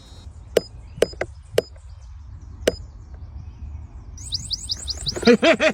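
Knocks rapped on an electronic geocache to tap out Morse code: five sharp raps, four close together in the first couple of seconds and one more about a second later. Near the end a loud, fast series of pitched pulses starts up, about six a second.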